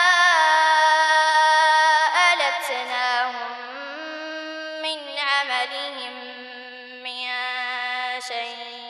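A boy reciting the Quran in melodic tajweed, drawing out long held notes with ornamented turns. After about two seconds the voice drops lower in pitch and becomes quieter.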